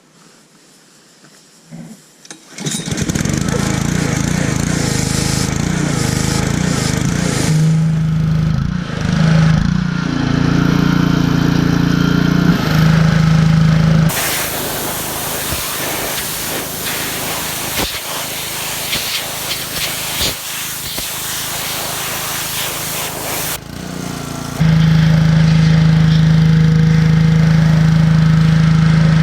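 Pressure washer starting up about three seconds in and running with a steady hum. Through the middle, a loud hiss of the water jet spraying takes over for about ten seconds, and then the steady hum returns.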